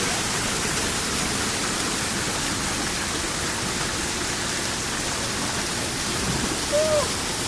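Waterfall water rushing: a steady, unbroken noise. A short pitched call sounds briefly near the end.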